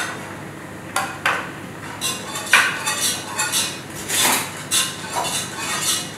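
Metal kitchen utensils clinking and scraping against pots and pans, including a spoon stirring in a cooking pot. There are several short, sharp knocks: about a second in, near the middle, and again about four seconds in.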